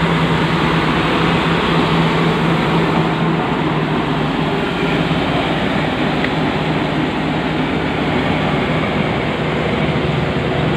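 Diesel engines of crawler bulldozers working hard under load as they tow and push loaded log trucks up a muddy slope: a loud, steady engine drone with a held low hum.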